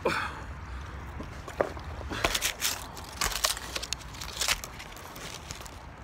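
Crackling, crunching and rustling as a jacket knotted into a bag of geodes is lifted and slung over a shoulder beside dry brush, with a brief swish at the start and a run of short crackles in the middle seconds.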